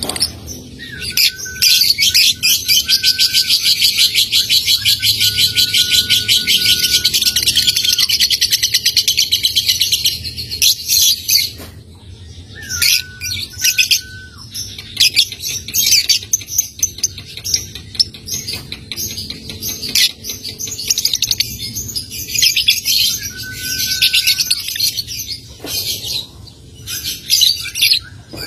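Young lovebird chattering: a long, rapid, rattling trill (ngekek) lasting about nine seconds, then shorter bursts of fast ticking chatter (ngetik) with short pauses between them.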